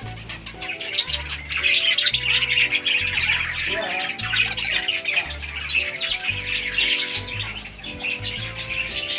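A flock of budgerigars chattering with dense chirps and squawks, over background music with a steady bass line.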